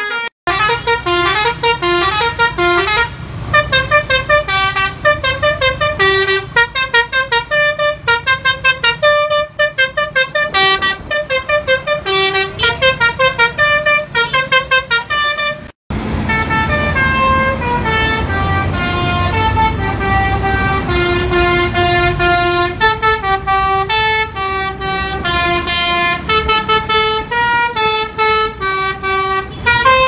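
Telolet basuri multi-tone bus horn playing a quick melody of short stepped notes, with an engine rumble underneath. After a break about 16 seconds in, another basuri horn plays a tune with slower, longer held notes.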